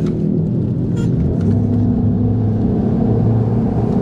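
Bass boat's outboard motor running steadily.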